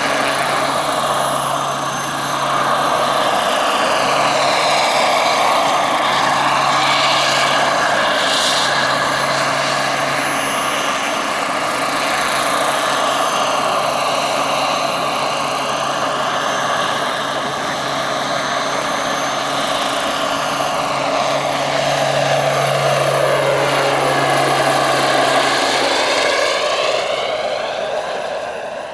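Large turbine-powered RC scale helicopter (1:5 Bell AH-1W Super Cobra with a Jakadofsky PRO X model gas turbine) in flight: steady high turbine whine over the rotor noise, with tones sweeping up and down as it moves about low over the field. The sound fades near the end as it climbs away.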